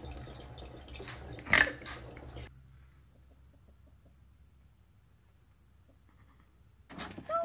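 Rustling and crackling of a snack bag stuck over a rabbit's head, with one sharp, loud crackle about a second and a half in. Then near quiet with a faint steady high whine, and a short burst of noise near the end.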